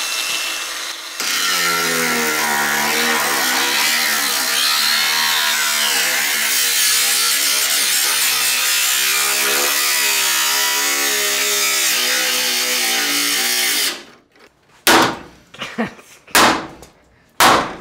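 A cordless power tool runs under load for about twelve seconds, its motor pitch wavering as it bites, then cuts off. A few sharp metal clangs from hammer blows follow near the end.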